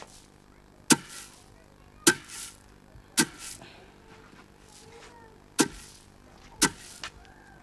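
A series of sharp knocks or strikes, about a second apart with a longer pause midway, each followed by a brief hissing tail.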